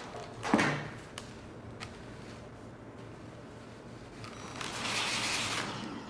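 A sharp knock about half a second in, then a steam iron pressing a folded fabric edge, hissing steam for nearly two seconds near the end.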